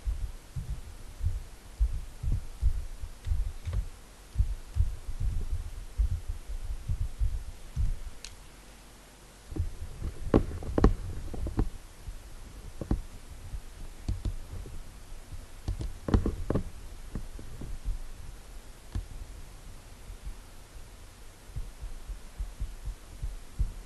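Computer keyboard typing, picked up as irregular dull low thumps, with a few sharper key or mouse clicks about ten and sixteen seconds in.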